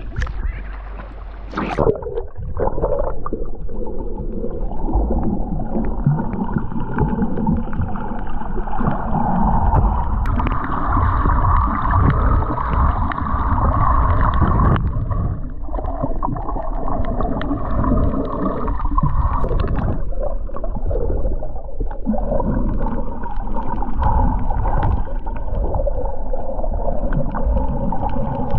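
Muffled, continuous water sloshing and gurgling, of the kind heard through a camera in or at the water's surface.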